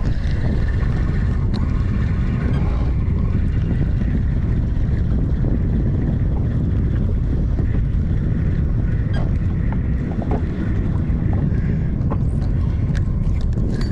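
Steady wind buffeting the microphone, a loud low rumble, with a few faint light clicks.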